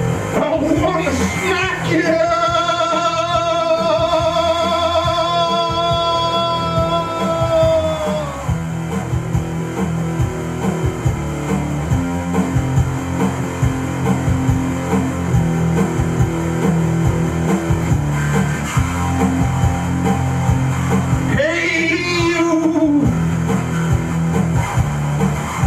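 Rock music with an electric bass guitar played along, over drums and a low backing. A singer holds one long note with vibrato in the first third, and a short sung phrase comes near the end.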